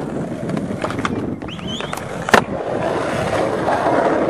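Skateboard wheels rolling on concrete, with several sharp clacks of the board. The loudest clack comes about two and a half seconds in.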